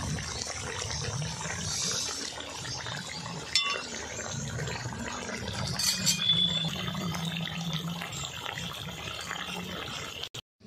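Fish curry simmering and bubbling in a large blackened kadai, a steady wet hiss, with a couple of sharp clinks about three and a half and six seconds in. The sound cuts off just before the end.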